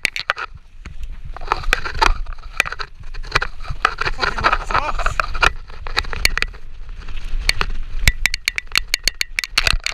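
Mountain bike rattling and clattering as it rides down a rough grass-and-rock trail, with tyres scrubbing through the ground and a steady low rumble underneath. The knocks come thickest near the end.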